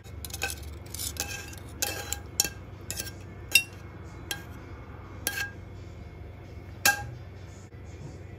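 Metal fork clinking and scraping against a ceramic pasta plate: about a dozen light, short clinks with a brief ring, the loudest about three and a half seconds in and another near seven seconds.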